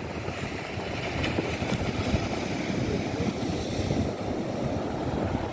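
Strong wind buffeting the microphone with a heavy, uneven rumble, over surf breaking and washing up a sandy beach.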